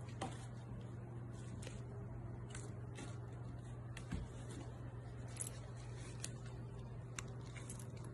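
A cat clambering on a carpeted, sisal-wrapped cat tree: soft scratching and rustling with scattered light clicks, over a steady low hum.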